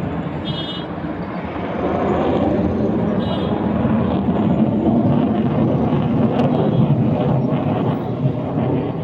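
Military aircraft flying over: a loud, steady rushing noise that swells about two seconds in and holds.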